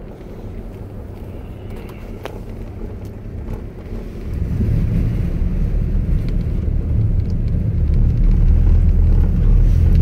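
Cabin noise of a GMC Yukon Denali driving on a snow-covered road: a steady low rumble of engine, tyres and wind that grows louder about four seconds in.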